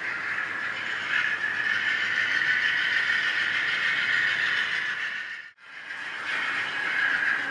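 HO-scale U25C model diesel locomotive running with its TCS WOWsound decoder playing diesel engine sound through a small speaker, mixed with the train's cars rolling on the track. The sound drops out briefly about five and a half seconds in, then resumes.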